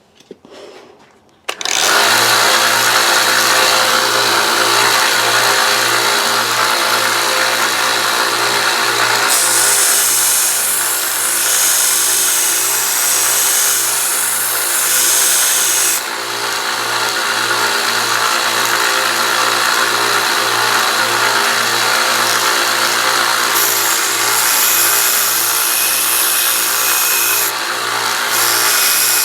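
Harbor Freight 1x30 belt sander with a 150-grit belt starting up about a second and a half in and running steadily with a pulsing hum. A steel kitchen knife blade is ground against the belt, and the high hiss grows louder in two long stretches.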